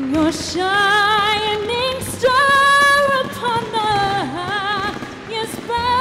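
A woman singing long held notes with a wide vibrato over soft backing music.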